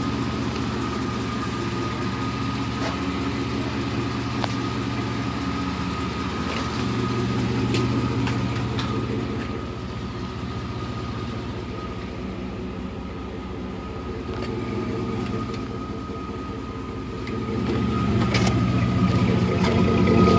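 Chevrolet Silverado Vortec engine running at idle with a light ticking, which the owner suspects is lifter noise. It grows louder about three-quarters of the way through.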